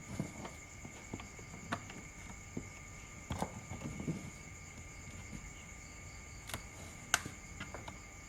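Scattered small clicks and knocks of a netbook being handled and worked on, with the loudest click about 7 seconds in, over a faint steady high-pitched tone.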